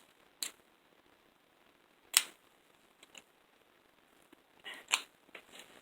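Plastic toy packaging being handled as someone struggles to open it: a few scattered sharp clicks and crinkles, the loudest about two seconds in, with short quiet gaps between.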